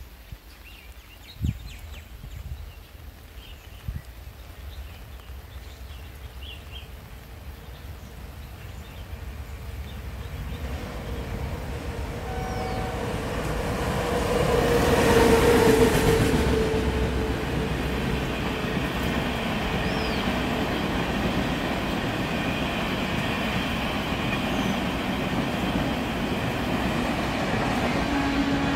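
An Indian Railways electric locomotive approaches and passes at speed, its sound building to a peak about halfway through, with a steady tone that is loudest as it goes by. It is followed by a train of LHB coaches rolling past with a steady rush and clickety-clack of wheels on rail.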